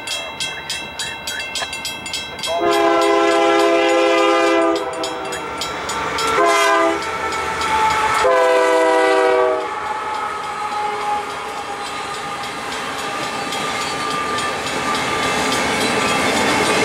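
Union Pacific AC4400CW diesel locomotives leading a loaded autorack freight train blow their horn: a long blast, a short one, then another long one. The locomotives then pass and the freight cars' wheels clatter over the rails, growing louder toward the end. A fast, steady ringing runs under the first couple of seconds.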